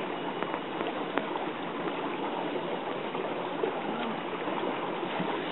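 Tsunami floodwater flowing past in a steady, even rush.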